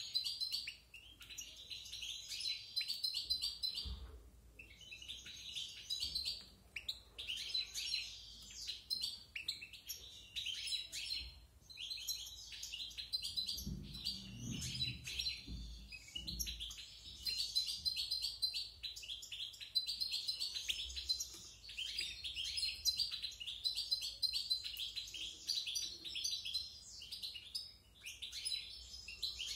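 European goldfinch singing: a fast, varied twittering song in long phrases broken by short pauses. A brief low rumble sounds faintly underneath about halfway through.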